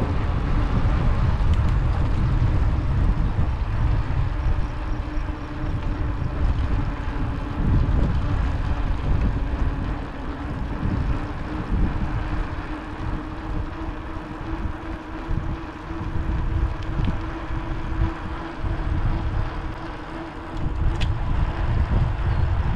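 Wind buffeting the microphone while moving: a heavy low rumble that swells and dips, with a faint steady hum underneath.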